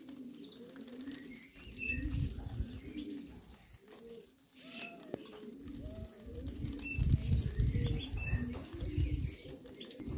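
Racing pigeons cooing over and over, with short high chirps mixed in and louder bursts of wing flapping about two seconds in and again in the second half.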